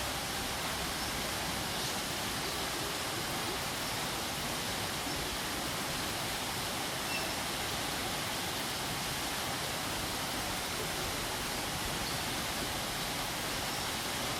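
Waterfall: the steady, even rush of falling water, unchanging throughout.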